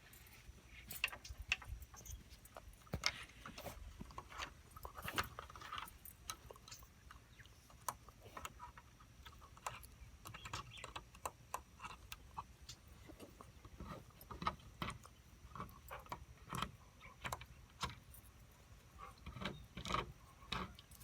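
A puppy making irregular light clicks and taps, with no steady rhythm, busiest in the first few seconds and again near the end.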